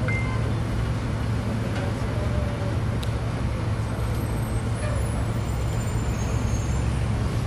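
Steady low hum and rumble inside an aerial tramway cabin riding its cables, mixed with road-traffic noise from the avenue below.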